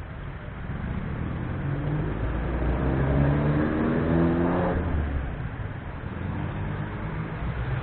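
A road vehicle's engine accelerating, its pitch rising for a few seconds and loudest about midway, over a steady low rumble.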